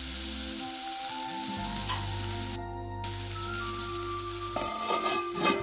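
Shallots, green chilies and curry leaves sizzling in hot coconut oil in a chatti. Near the end a steel plate lid is set down over the pan with a short clink.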